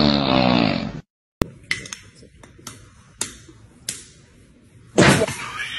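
A loud, low snore that stops abruptly about a second in. Then a few sharp clicks and taps, spaced out, and a loud sudden burst of noise near the end.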